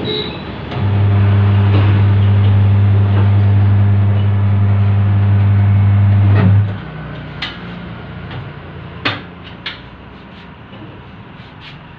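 Tyre changer's electric motor running steadily, a low hum, as it turns the wheel on the turntable for about six seconds before stopping. After it stops come a few sharp metal knocks and clicks as the mount head and tools are handled.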